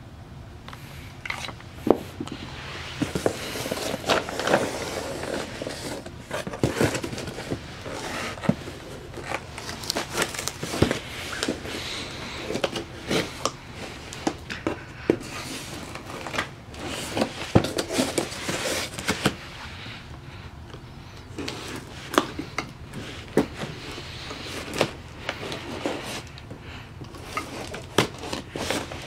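A fixed-blade knife cutting open a cardboard box: the blade scrapes and slices along the taped seams, with many sharp clicks and crackles of the cardboard.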